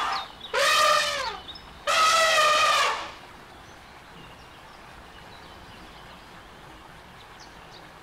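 Elephant trumpeting: two short, brassy calls about a second each within the first three seconds. The first rises and falls in pitch, the second is steadier.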